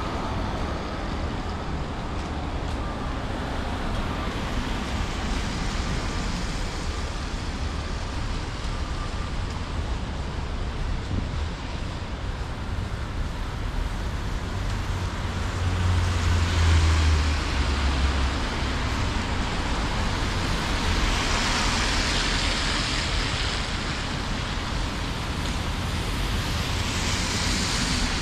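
City street traffic: steady road noise of passing cars. A heavier vehicle's low engine rumble swells past a little over halfway through, and tyre hiss swells up twice in the last third.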